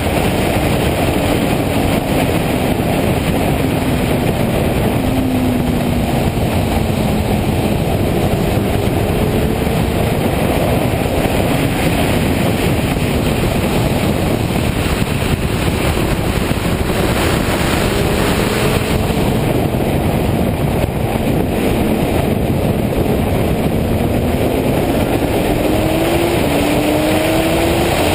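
Suzuki GSX-R sport bike's inline-four engine running at speed under a heavy, steady rush of wind noise on the microphone. The engine note falls in pitch over the first several seconds, then climbs again near the end as the bike accelerates.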